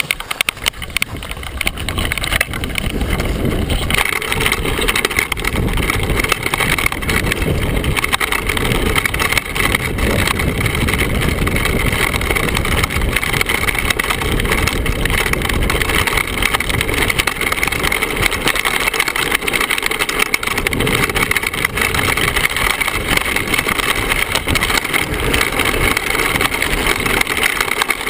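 Downhill mountain bike riding fast over a rocky dirt trail: a continuous rough rumble of the tyres on loose stones, with the frame, chain and fork rattling over the bumps.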